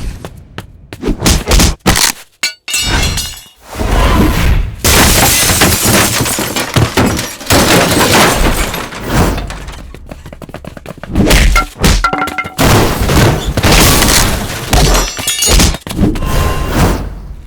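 A quick succession of loud cinematic action sound effects: sharp hits and crashes, with longer noisy crashing stretches in between.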